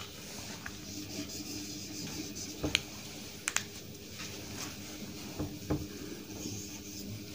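Faint marker-on-whiteboard handling: light scratching and a few short taps or clicks, over a low steady room hum.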